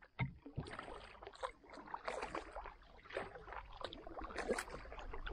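Canoe being paddled: the paddle dipping and pulling through the water, with irregular splashes and drips against the hull.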